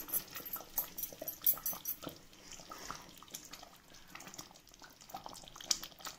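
Fish gravy simmering in a clay pot, bubbling with small irregular pops and ticks.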